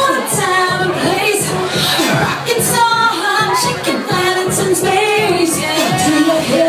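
A woman singing pop into a handheld microphone over loud music with a steady dance beat.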